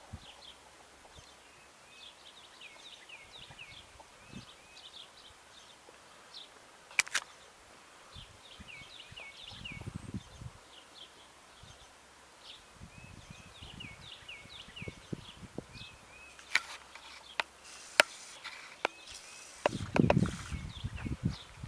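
Outdoor ambience of many short, high chirps repeating throughout, with a few sharp clicks and bursts of low thumping, the loudest near the end.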